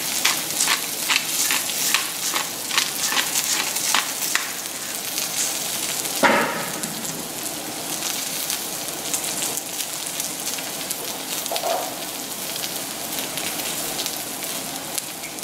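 Onions, ginger and garlic sizzling in oil in a skillet. For the first four seconds or so a pepper mill is ground over the pan, making a run of even clicks about three a second. About six seconds in there is a single loud knock, and then only the steady sizzle.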